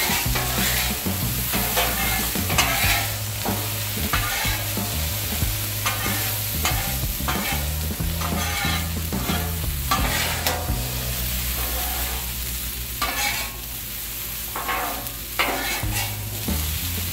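Metal spatulas scraping across the steel top of a Blackstone flat-top griddle in repeated strokes as diced potatoes are tossed and turned, with the potatoes sizzling underneath.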